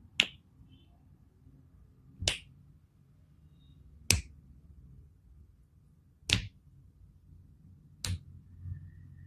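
Joints cracking during a massage: five sharp pops, evenly spaced about two seconds apart.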